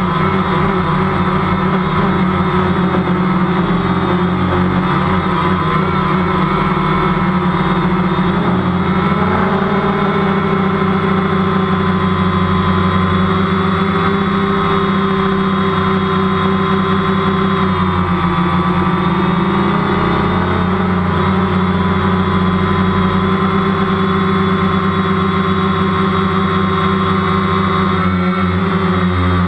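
DJI Phantom quadcopter's electric motors and propellers buzzing steadily, heard loud from the camera on board. The pitch dips and rises a little twice as the motors adjust their speed in flight.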